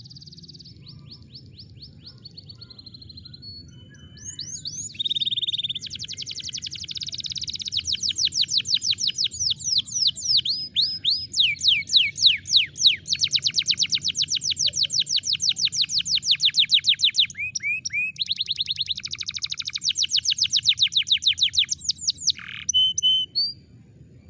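Domestic canary singing a long song of rapid trills, each a fast run of repeated sweeping high notes, with the speed and pitch changing from phrase to phrase. It starts with softer notes, grows loud about five seconds in, and stops shortly before the end. A faint low hum runs underneath.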